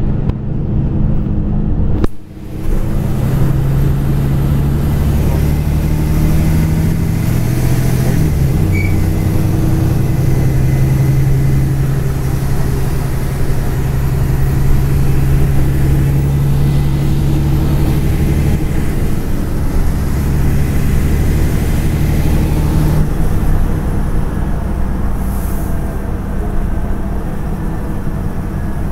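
Inside a LiAZ-6213.22 articulated city bus under way: the diesel engine's steady low drone with road and body noise, its pitch shifting a few times as the bus speeds up and slows. A brief break about two seconds in.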